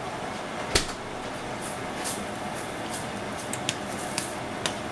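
Butter sizzling in a hot nonstick frying pan, a steady hiss. The spatula knocks sharply once about a second in, and scrapes and taps lightly against the pan near the end as the butter is stirred.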